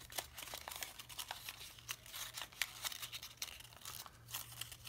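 Origami paper rustling under the fingers as it is creased and folded: a quick, irregular run of small crisp paper clicks, with a faint steady low hum underneath.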